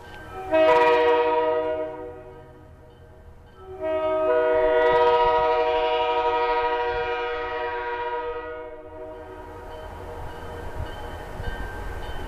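EMD GP40-2LW diesel locomotive's air horn sounding two blasts, a short one about half a second in and a long one of about five seconds starting near four seconds in. After the horn stops, the low rumble of the approaching locomotives builds.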